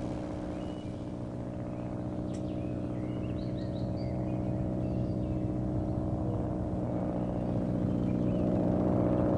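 Early propeller aeroplane's piston engine droning steadily and growing gradually louder. A few faint bird chirps come in about two to five seconds in.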